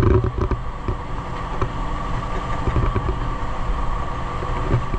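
Boat engine running steadily: a constant low hum with a thin steady whine on top and scattered light knocks.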